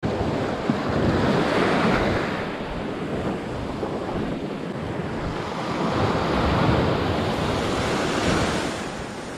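Small surf breaking and washing up onto the sand at the shoreline. It is louder twice as waves come in.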